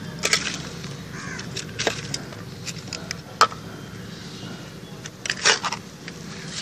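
A hand trowel scooping and turning moist farmyard manure in a metal pan: a few short scrapes of the blade and clumps dropping, with a longer rasping scrape near the end. The manure has been dampened and is being lightly stirred before Pseudomonas fluorescens is mixed in.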